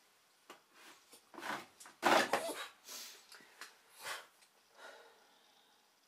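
A pet dog making a string of short, breathy sounds close by, the loudest about two seconds in.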